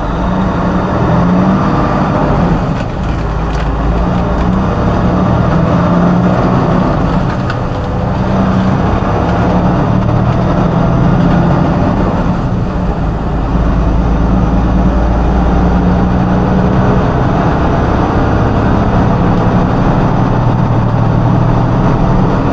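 Truck engine running steadily while driving, heard from inside the cab as a low drone over road noise.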